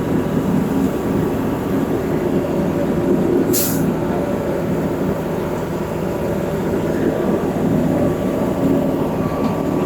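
Heavy diesel truck engine running steadily at a concrete pumping site. About three and a half seconds in, a short hiss of released air cuts in.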